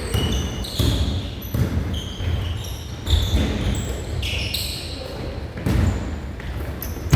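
Basketball game in play on an indoor court: the ball bouncing with repeated thuds, and short high squeaks of sneakers on the floor.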